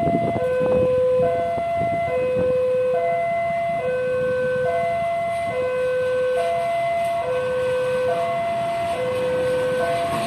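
Railway level-crossing warning alarm sounding a steady alternating high-low two-tone, each tone lasting just under a second. A diesel locomotive rumbles underneath.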